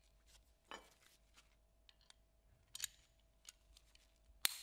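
Light metallic clicks and clinks as a steel pin-type locking tool is handled and adjusted in gloved hands, a few scattered clicks with the sharpest near the end, over a faint steady hum.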